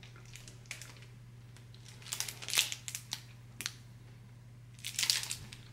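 Crinkly wrapper of a Clif Builder's protein bar being handled, crackling in a few short bursts, loudest about two and a half seconds in and again about five seconds in. A faint steady low hum lies underneath.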